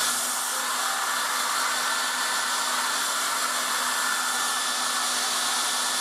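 A 1980s Black & Decker Stowaway travel hairdryer running steadily on its low-speed, low-heat setting: a rush of air with a constant motor whine.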